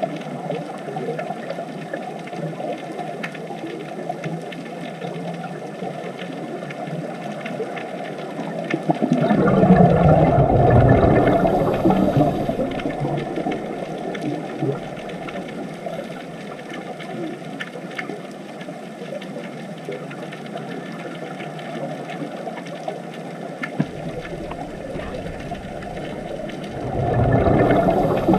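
Scuba diver breathing through a regulator underwater: a loud bubbling exhalation about ten seconds in and another starting near the end, over a steady underwater hiss with small crackles.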